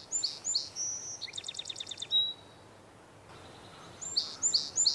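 Song sparrow singing twice: each song opens with three or four clear separate notes, then breaks into a rapid trill. The second song starts about four seconds in, after a short pause.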